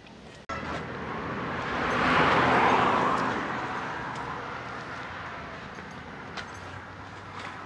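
A passing road vehicle: a broad rush that swells to its loudest about two seconds in, then slowly fades away.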